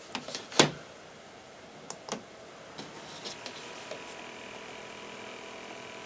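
Sharp clicks of a small battery-powered portable fan being handled and its speed button pressed, the loudest about half a second in and two more around two seconds in. From about three seconds in the fan's motor runs with a steady hum and faint whine at its medium speed setting.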